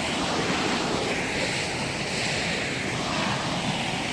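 Steady rushing noise, with a hiss that swells and fades in the middle.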